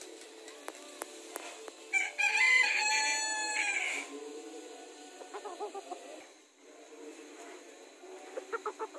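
Silver Sebright bantam rooster crowing once for about two seconds, followed by softer clucking and a quick run of about six short clucks near the end.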